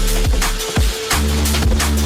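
Drum and bass music: fast breakbeat drums over heavy sustained sub-bass, with a brief drop in the beat just before halfway before the bass comes back in.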